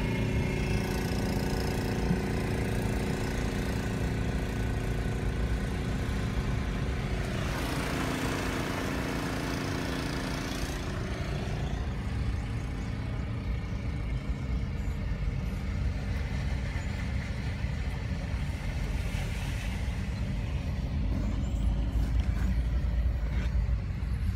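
Car engine and road rumble heard from inside the cabin while driving slowly through floodwater covering the street, with a rushing hiss that swells for a few seconds about a third of the way in.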